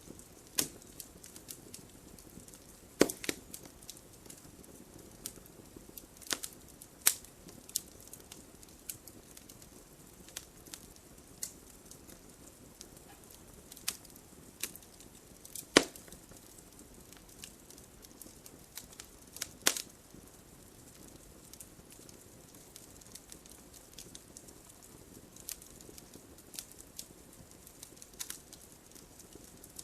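Wood fire burning in a fireplace: irregular sharp crackles and pops from the burning logs over a faint steady hiss, with a few louder snaps scattered through.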